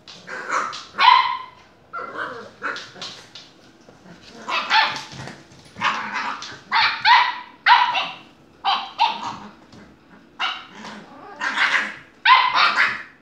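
Black puppy barking over and over: short, high-pitched barks, often two or three in quick succession.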